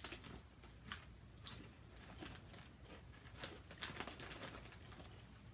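Thin potato chips being bitten and chewed: an irregular scatter of short, sharp crunches, several close together around the middle, with some crinkling of the foil chip bag as it is handled.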